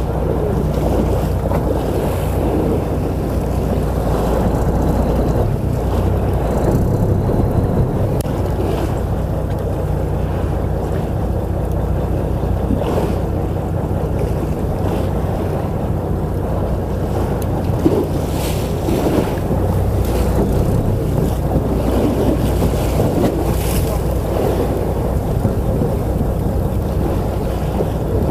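Boat's engine running steadily at sea, with wind buffeting the microphone and waves, and a few scattered knocks.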